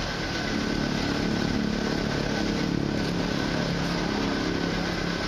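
Small motorcycle engine idling steadily, with a faint steady high whine alongside.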